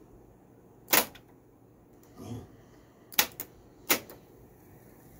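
Transport controls of an Akai GX-260D reel-to-reel tape deck clicking as the buttons are pressed and the mechanism engages: a sharp click about a second in, a softer knock a little after two seconds, then a quick double click and one more sharp click near the end.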